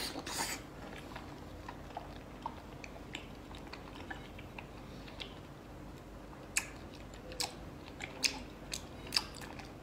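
A person chewing a mouthful of soft braised pork belly close to the microphone, with small wet mouth clicks. Four sharper smacks come in the second half.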